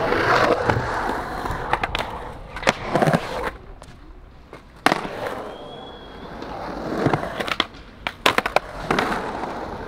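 Skateboard wheels rolling, with a string of sharp clacks as the board hits the ground again and again through the run.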